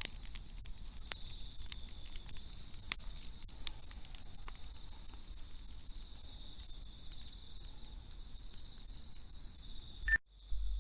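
Crickets chirring in a steady, high, unbroken chorus, with a few sharp clicks in the first few seconds. The sound breaks off abruptly near the end.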